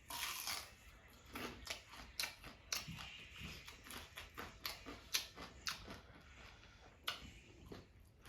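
A person chewing and biting food close to the microphone, with many short, irregular mouth clicks.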